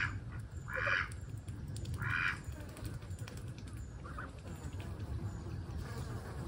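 Waterfowl calling: three short calls about a second apart near the start, then a fainter fourth one a few seconds in.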